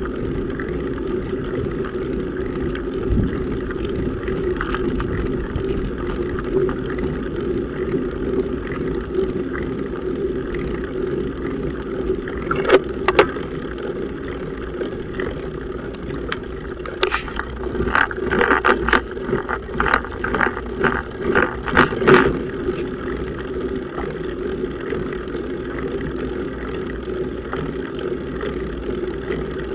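Bicycle riding slowly uphill on asphalt, heard through a bike-mounted camera: a steady rumble of tyre and road noise with a low hum. Between about 12 and 22 seconds in there is a series of sharp clicks and rattles.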